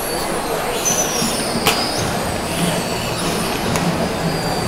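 Crowd noise from a packed baseball stadium stand, a steady hubbub with a few sharp claps or knocks and thin high whistles gliding downward, while the fans hold their inflated jet balloons.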